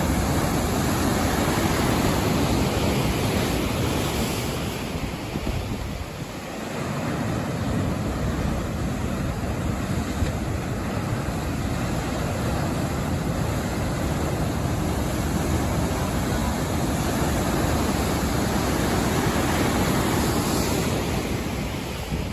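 Ocean surf breaking and washing in: a steady rushing noise that swells and eases over several seconds, with wind on the microphone.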